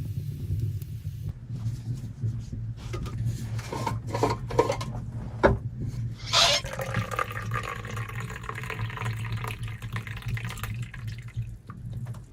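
Liquid poured into a container, running steadily for several seconds after a sudden splash-like start just past the middle, with light knocks and clicks of handled objects before it, over a constant low hum.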